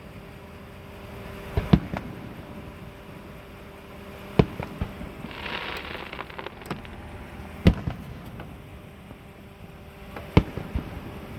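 Fireworks bursting: four sharp bangs at roughly three-second intervals, each followed by a few smaller pops.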